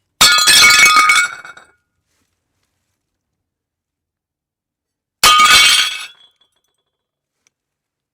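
Ceramic plates smashing on a hard floor, twice: each a sudden crash of breaking crockery followed by about a second of clattering, ringing shards, the second crash about five seconds after the first.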